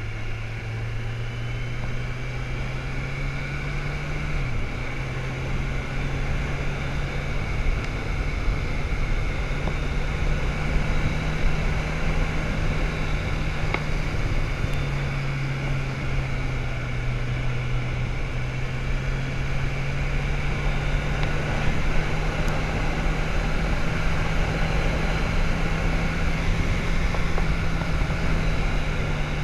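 Motorcycle engine running at road speed under steady wind rush, its note climbing gradually and dipping twice, about four and fifteen seconds in.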